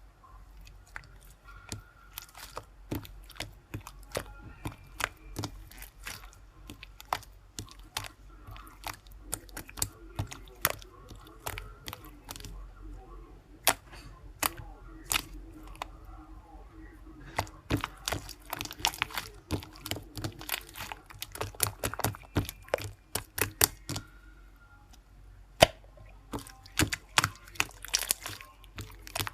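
Irregular sharp clicks and taps in a small room, sometimes single and sometimes in quick dense runs, over a low steady hum.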